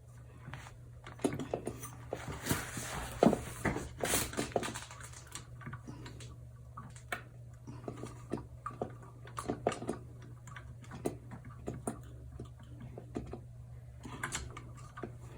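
Irregular light clicks, taps and rattles of metal and plastic ceiling-fan parts being handled as the downrod is pushed into its holder. A steady low hum runs underneath.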